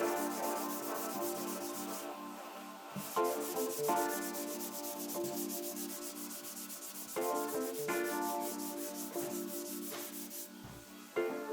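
Body filler being block-sanded by hand with 180-grit paper, in quick, even back-and-forth strokes that pause briefly twice. Background music with sustained chords plays underneath.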